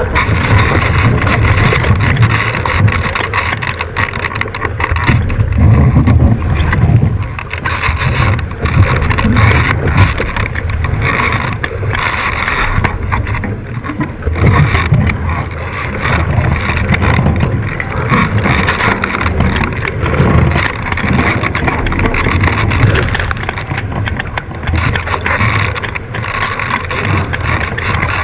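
Onboard audio of an 18ft skiff under sail: wind buffeting the camera microphones over water rushing along the hull, loud and surging unevenly.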